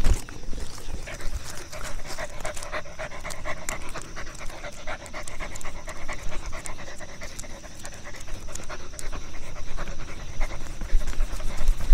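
Dog panting.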